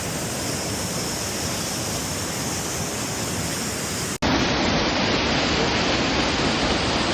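Waterfall rushing steadily. A sudden break about four seconds in, after which the rush is somewhat louder.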